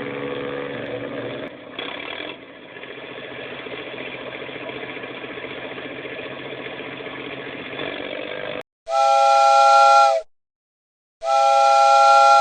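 An engine running steadily, then two long blasts of a steam-train whistle sounding a chord of several notes, each about a second and a half, the second near the end.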